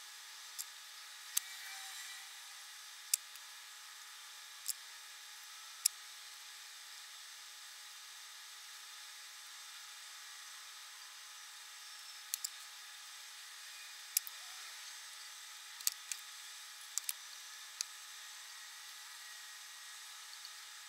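Small sharp clicks and ticks from hands handling thin hookup wires and small electronic parts, a few early and a cluster a little past the middle, over a faint steady hiss.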